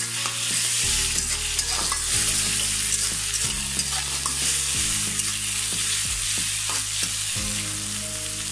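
Sliced onions and garlic paste sizzling in hot oil in a steel karahi, with a spatula stirring and scraping through them as the garlic paste fries.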